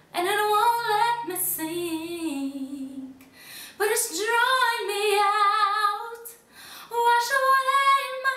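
A woman singing unaccompanied in three long phrases, with short breaths between them and wavering held notes.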